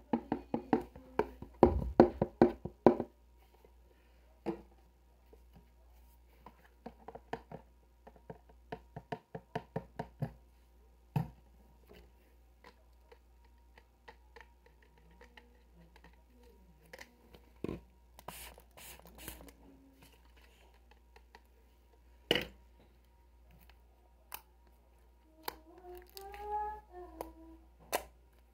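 Hands tapping and clicking on a small object, in fast runs of taps over the first few seconds and again about eight seconds in, then single sharp clicks spaced out. A brief pitched wavering call is heard near the end.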